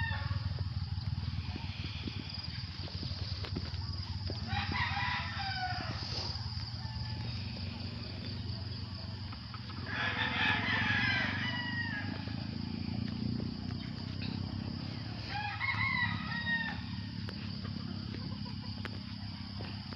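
A rooster crowing three times, about five seconds apart, each crow lasting about a second and a half, over a steady low hum.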